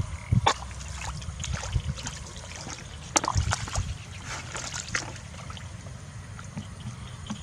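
Water splashing and trickling in irregular bursts, with sharper splashes about half a second in and around three seconds in, over a steady low rumble.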